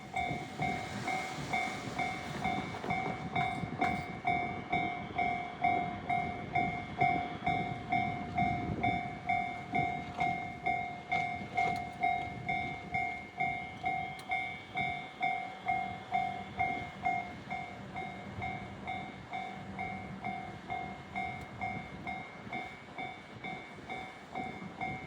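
Japanese level-crossing warning bell ringing its steady "kan-kan", about two strikes a second. A train rumbles through over the first nine or ten seconds, and a steady low hum follows later on.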